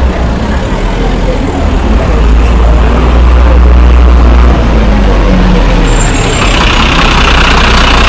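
Heavy road vehicle running close by in street traffic, a loud steady low rumble; a hiss joins it about six seconds in.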